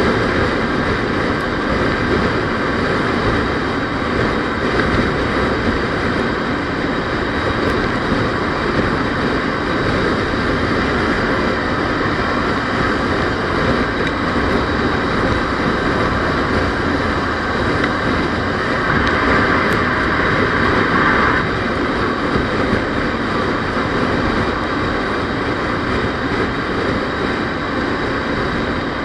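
Steady road and engine noise from a vehicle driving along. About two-thirds of the way through, a higher hiss rises over it for about two seconds.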